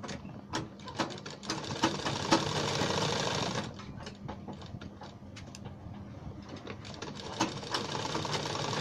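Sewing machine running and stitching a buckram strip onto fabric: fast, uneven ticking of the needle mechanism over a low hum. It goes lighter for a few seconds in the middle, then picks up again near the end.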